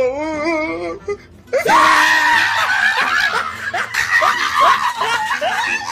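A man wailing with a wavering pitch for about a second, then, after a short pause, screaming and crying loudly in exaggerated distress.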